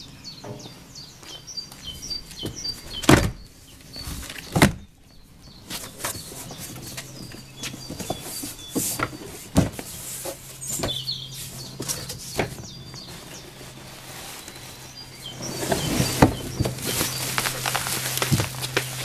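A large cardboard box being opened by hand: knocks, scrapes and flaps of cardboard, with two sharp knocks about three and four and a half seconds in. Near the end, plastic wrap rustles as the packed bicycle is lifted out. Birds chirp in the background.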